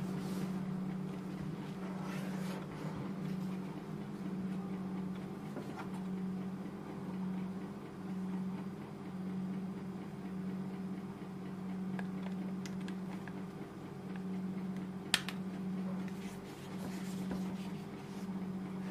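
Steady low electrical hum that swells and fades about once a second, under faint handling rustle of a gaming headset. About fifteen seconds in, a single sharp click as the detachable boom microphone's plug is pushed into the earcup's jack.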